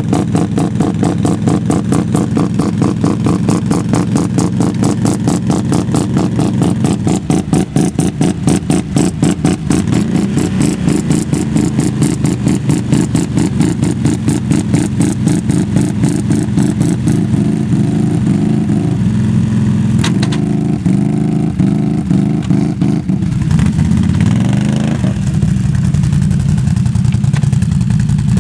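ATV engine running at a lumpy, pulsing idle, then revving up and settling back down about three-quarters of the way through.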